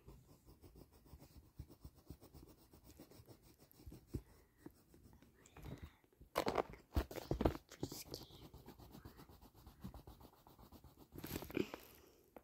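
Pencil scratching on paper in quick, rapid strokes while colouring in a drawing, with two louder stretches of scratching and handling partway through and near the end.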